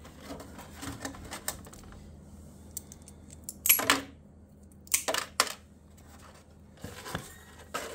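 Small pieces of fused-glass scrap clicking and clinking against each other and the glass base as they are picked up and repositioned. A few separate sharp clicks, the loudest about halfway through and a quick cluster of three just after.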